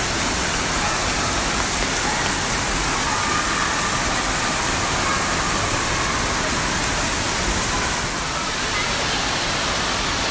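Steady rush of splashing, falling water from indoor water-park slides and water features, an even, unbroken wash of noise.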